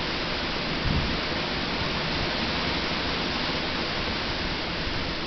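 Steady rushing noise of gale-force storm wind and rain, with low buffeting from gusts and a brief low thump about a second in.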